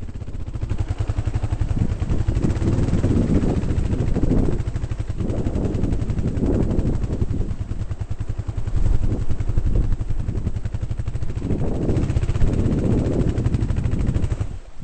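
Kawasaki KLR 650's single-cylinder four-stroke engine running under load, its exhaust pulsing rapidly and rising and falling in level as the throttle is worked through mud and puddles.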